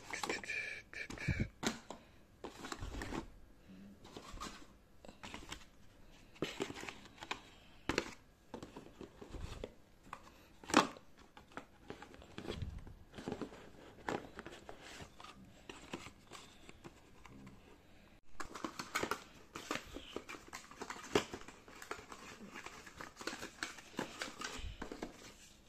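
Small cardboard boxes of an advent calendar being handled and opened by hand: scattered rustling, scraping and light taps of card, with one sharper click about eleven seconds in.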